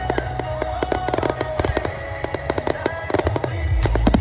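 Fireworks going off in rapid succession, many sharp pops and crackles a second, with music playing underneath.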